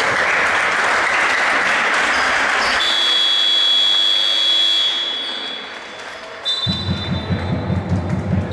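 A basketball hall crowd cheers and applauds for about three seconds. Then a long, shrill, steady whistle-like tone lasts about two seconds. Low repeated thuds follow near the end.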